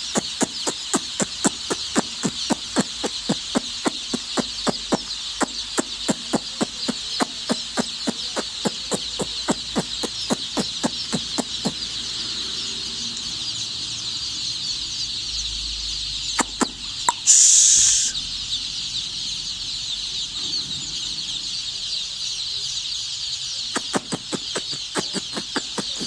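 A shed full of two-to-three-day-old chicks peeping continuously as a dense, high chorus. A regular ticking of about three strokes a second runs under it through the first half and comes back near the end. A loud hiss lasting about a second breaks in about two-thirds of the way through.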